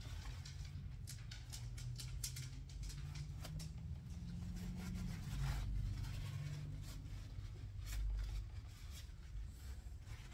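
Light hand rubbing and scraping on the rifle's metal scope rings, with many small irregular clicks and scrapes over a low rumble.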